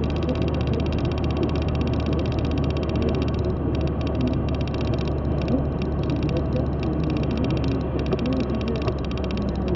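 Steady low drone of engine and tyre noise inside a car cruising at motorway speed.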